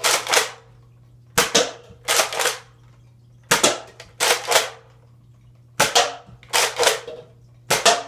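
Nerf Alpha Trooper spring-powered pump-action blaster being primed and fired over and over, a sharp snap then a longer clack about every two seconds.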